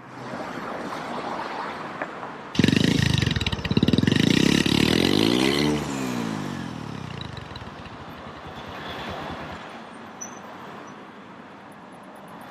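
A vehicle engine comes in suddenly and loud, revs up and drops back in pitch, then fades away as the vehicle moves off.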